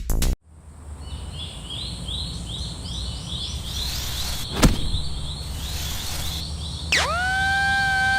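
Sound effects over a low steady rumble: a quick series of high chirps, about three a second, then a single sharp click. Near the end a pitched tone glides up and holds steady, like a siren winding up.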